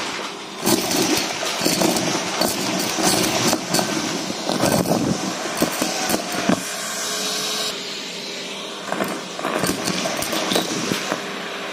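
Vacuum cleaner running with a bare metal wand, sucking up small craft scraps (paper pieces, buttons, sequins, plastic bricks) that rattle and clatter up the metal tube. The clattering eases to a steadier suction for a second or so about seven seconds in, then picks up again.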